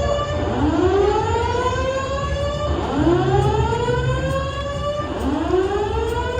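Building alarm sounding a repeating slow-whoop tone. The pitch climbs for about two seconds, drops back and climbs again, three times. The casino's alarm signal is going off while its source is being investigated.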